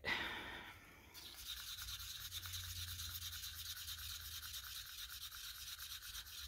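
Wooden craft stick stirring freshly combined two-part casting resin in a small mixing cup. The stick scrapes the cup in quick, steady strokes, starting about a second in.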